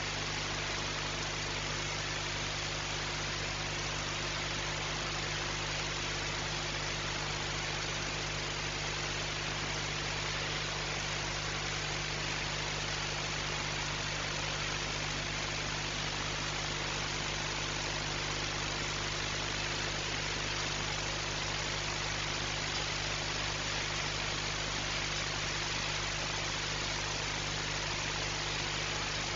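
Steady mechanical hum with several constant low tones under an even hiss, unchanging throughout.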